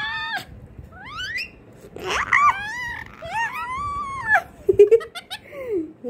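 Green parakeet squawking: a short rising squeal, then a long wavering harsh call, a few sharp clicks and a short falling call near the end. The owner takes these calls for the bird being angry.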